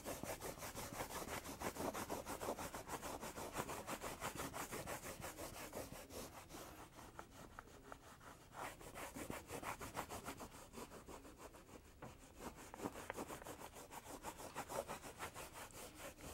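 Shoe shine rag rubbed quickly back and forth over a tooled leather saddle, a faint steady run of rubbing strokes as the leather is buffed to a shine. The strokes ease off briefly about halfway through and then resume.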